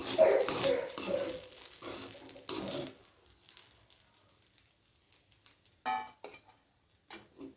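Dishes and cutlery clattering for about the first three seconds, then mostly quiet with a couple of short sounds near the end.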